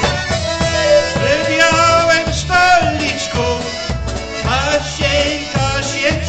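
Live polka band playing: trumpet and clarinet carry the melody over drums and a steady bouncing beat.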